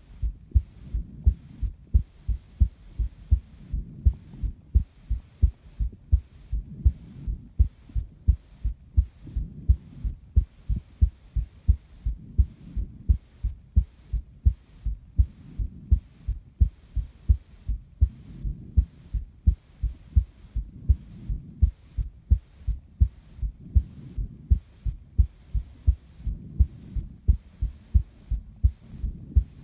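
A human heartbeat recorded close against the chest: a steady, even run of low thumps. Soft breathing noise swells and fades every few seconds underneath.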